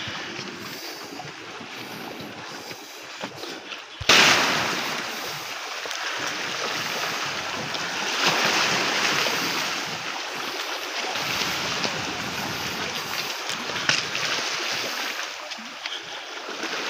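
Sea surf washing against a rocky shore: a steady hiss that swells and eases, starting abruptly about four seconds in after a quieter stretch.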